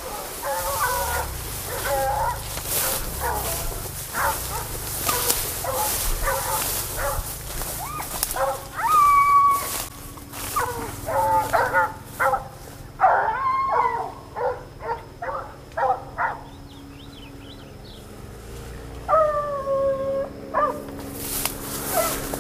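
A pack of hunting dogs barking and baying: many short barks, with two long drawn-out howls, one about nine seconds in and one near the end. This is the baying of dogs trailing wild boar.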